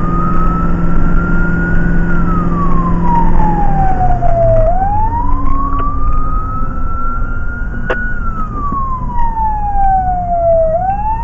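Fire engine siren wailing, its pitch slowly climbing and falling twice, heard from inside the cab over the steady drone of the truck's engine, which changes note about three and a half seconds in.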